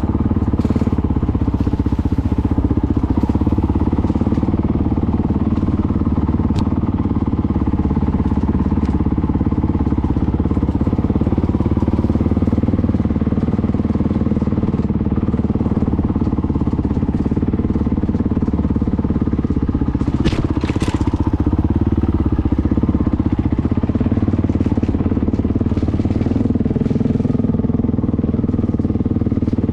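Honda CRF 450L motorcycle's single-cylinder four-stroke engine running steadily at low revs, with occasional clicks and a louder rattle about twenty seconds in.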